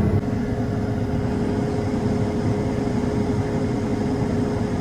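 Combine harvester running steadily, a low engine rumble with one constant tone above it.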